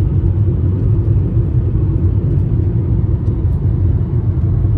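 Steady low rumble of a moving car heard from inside the cabin: road and engine noise while driving.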